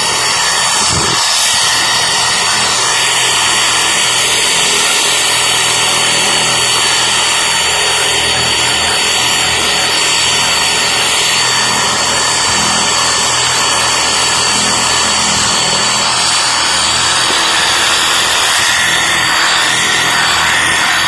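Reciprocating saw running steadily, its blade fitted with a wire brush that scrubs into a block of solid styrofoam, shredding it into polystyrene beads.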